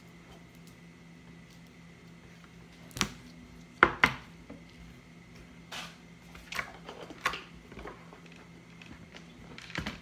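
Scattered clicks and knocks of hands handling slime and small plastic tubs on a wooden tabletop, the loudest pair about three to four seconds in.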